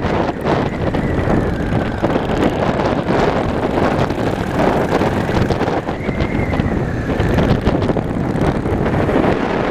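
Motorcycle on the move, with wind buffeting the microphone over the running engine.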